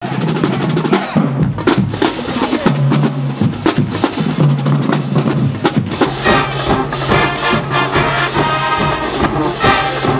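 HBCU marching band playing: sharp drumline hits and cymbals over low held brass notes, with the full horn section coming in loud about six seconds in.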